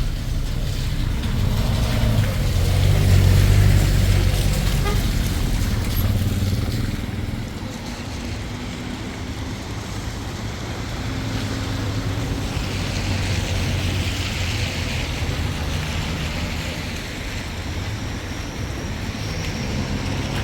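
Motor vehicle engine running with a steady low rumble and road noise, swelling a couple of seconds in and easing off after about seven seconds.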